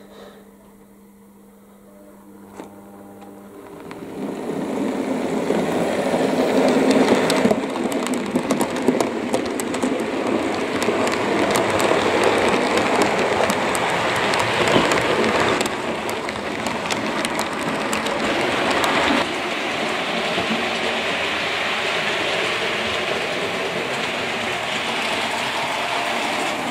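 OO gauge model locomotive, 45596 Bahamas, and its train running along the track. A faint steady hum at first gives way over a few seconds to a continuous rattle of wheels and motor, with many fine clicks.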